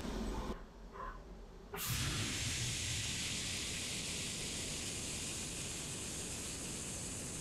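CNC machine tool running with coolant spraying: after a short quieter stretch, a steady hiss comes in suddenly about two seconds in and holds.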